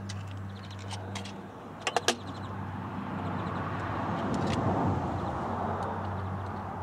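A vehicle passing by, swelling to its loudest about two-thirds of the way through and then fading. About two seconds in there are three quick sharp clicks, over a steady low hum.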